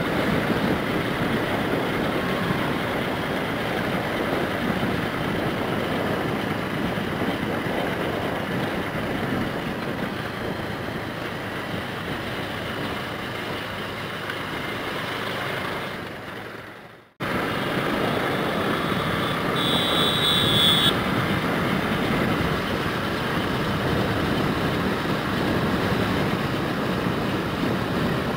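Steady rushing wind and road noise on the microphone of a moving motorcycle. It fades out just past halfway and cuts back in abruptly. A brief high-pitched beep follows a few seconds later.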